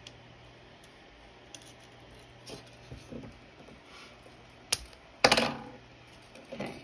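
Thin 20-gauge craft wire being handled and laid against a crocheted leaf, with faint rustling and small ticks. About five seconds in a click comes, then a loud sharp clack with a short tail as the scissors come into play.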